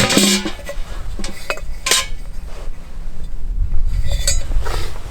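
Metal cookware and cutlery clinking and clattering: a burst of clatter at the start, then a few separate knocks and clinks.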